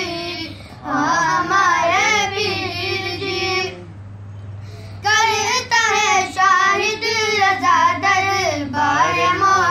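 A solo voice sings an Urdu manqabat, a devotional praise poem, with ornamented, wavering melodic lines. It breaks off for about a second near the middle, then carries on.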